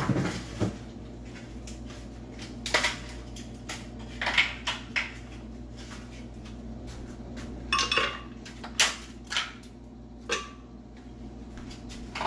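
Kitchenware being handled: scattered clinks and clatters of dishes and utensils, a few ringing briefly.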